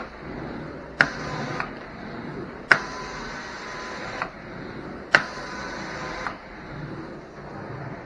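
Hot water extraction carpet wand: the suction runs steadily while the spray trigger is pulled three times. Each pull opens with a sharp click, gives about one to one and a half seconds of spraying hiss, and closes with a click when released.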